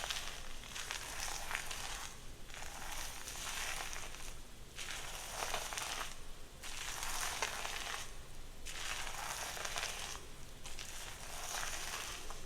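Hair being worked in long, rhythmic strokes with a crisp, crackling rustle, about one stroke every two seconds with brief pauses between.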